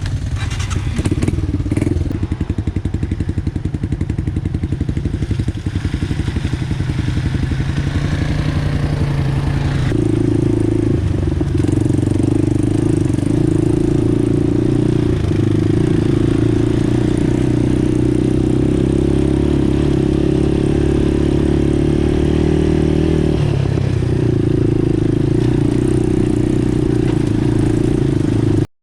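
ATV (four-wheeler) engine running steadily under way on a trail. Its note steps up and grows stronger about ten seconds in, then holds.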